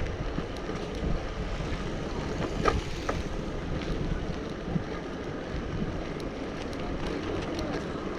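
Wind buffeting the microphone: a steady, uneven low noise with a few faint clicks.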